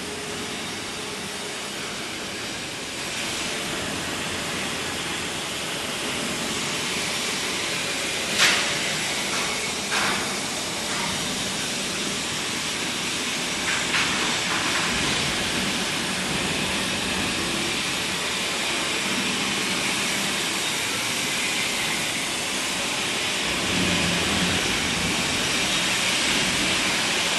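Steady hissing machinery noise of a steel fabrication workshop, with a few short sharp metal knocks in the first half.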